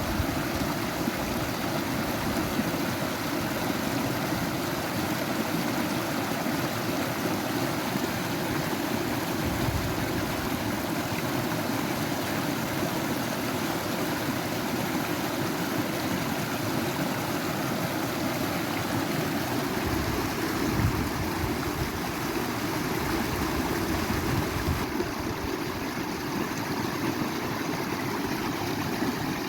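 Natural running water rushing steadily over rocks, an unbroken, even rush.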